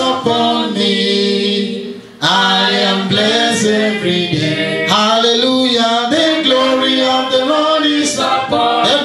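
Church congregation singing a worship chorus a cappella, led by a man's voice on the microphone, with a short pause about two seconds in.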